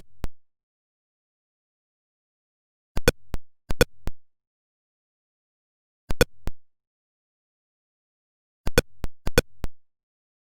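Atari Pong sound effects: short electronic beeps, each with a sharp attack and a brief tail, coming in clusters of one to three about every three seconds with silence in between.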